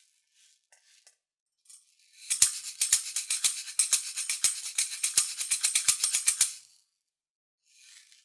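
A percussion shaker shaken in a fast, steady rhythm of about seven strokes a second. It starts about two seconds in after a few faint rattles, lasts about four and a half seconds, and ends with a faint rustle near the end.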